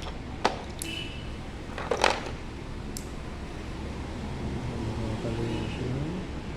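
A few sharp clicks and knocks from handling objects, one about half a second in, a louder one about two seconds in and a lighter tick a second later, over a steady low hum.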